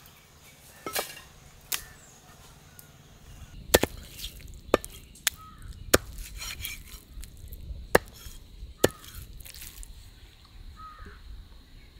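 Knife chopping raw mutton on a chopping block: sharp, separate chops at an irregular pace, roughly one a second.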